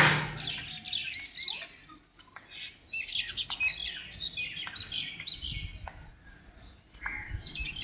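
Many small birds chirping at once: quick overlapping high chirps and short arched notes, with a brief lull about two seconds in.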